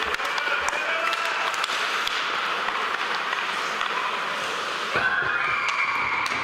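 Ice hockey game sound in a rink: a hall full of voices calling and crowd noise, with scattered clicks of sticks, puck and skates on the ice. It gets louder about five seconds in.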